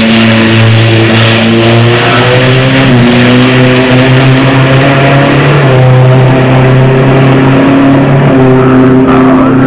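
Pro Street drag motorcycle's engine at full throttle on a drag-strip pass, a loud steady drone whose pitch steps up a little a few times.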